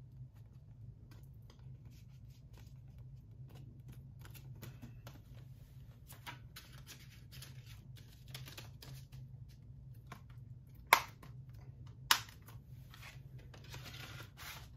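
Plastic Blu-ray case and cardboard slipcover being handled: soft scrapes, rustles and small clicks, with two sharp snaps about a second apart near the end, over a faint steady low hum.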